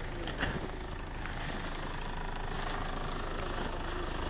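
Hyundai Santa Fe SUV's engine idling, a steady low rumble, with a few faint clicks.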